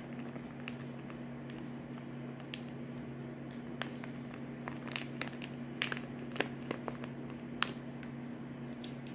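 Foil cheese-sauce pouch being squeezed out by hand, crinkling in scattered sharp crackles every second or so. A steady low hum runs underneath.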